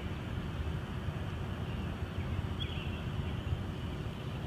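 Outdoor background noise: a steady low rumble, with a faint short chirp about two and a half seconds in.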